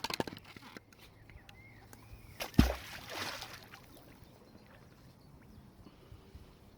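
A few light clicks of handling, then one sudden splash about two and a half seconds in as something drops into the river water, with a deep thump and a short wash after it. A bird chirps faintly a few times.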